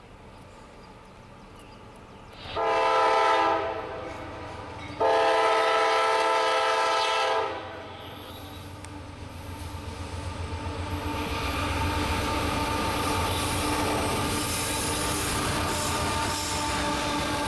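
A CSX GE AC4400CW diesel locomotive's multi-chime air horn sounds a shorter blast, then a longer one. After that the locomotive's engine rumble and the wheel and rail noise of the freight train grow steadily louder as it approaches and passes.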